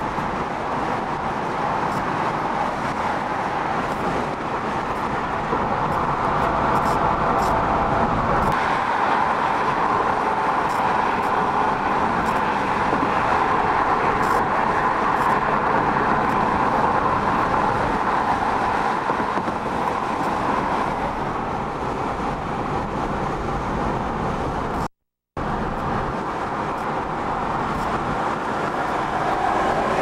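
Steady road noise inside a car's cabin at freeway speed, the hum of tyres and engine. The sound cuts out completely for about half a second near the end.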